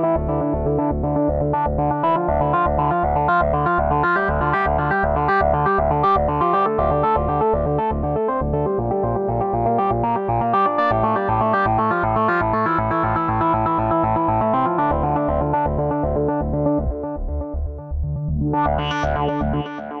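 Arturia SQ80 V software synthesizer, an emulation of the Ensoniq SQ-80, played from a keyboard: sustained chords over a low pulse repeating about four times a second. Shortly before the end the tone briefly turns much brighter.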